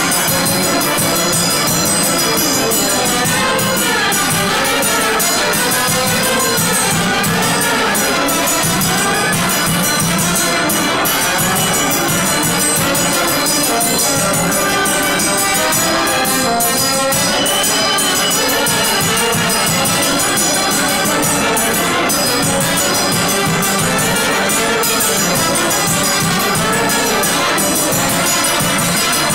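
Romanian traditional brass band (fanfară) playing a lively folk dance tune, brass carrying the melody over a steady beat.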